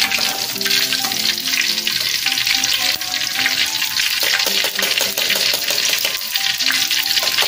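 Tofu deep-frying in hot oil in a wok: a dense, steady crackling sizzle while the fried pieces drain over the oil on a perforated metal skimmer. A simple background melody plays under it.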